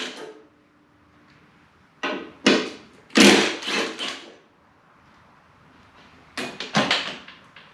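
Cordless power tool run in two short bursts about two and three seconds in, backing out half-inch bolts. Near the end comes a clatter of metal tools as it is set down in a tool chest.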